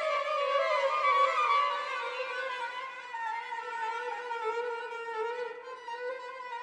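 String quartet holding high, wavering violin notes with vibrato. The pitch sags slightly about a second in, and the playing grows softer after about two seconds, settling into quieter held notes.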